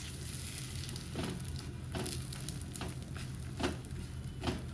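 Thick wheat roti cooking on a hot nonstick tawa, with a faint sizzling hiss. There are about five soft taps as a hand presses the roti down onto the pan, over a steady low hum.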